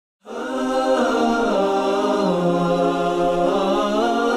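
A cappella vocal music: unaccompanied voices singing long held notes that slowly bend in pitch, beginning about a quarter second in.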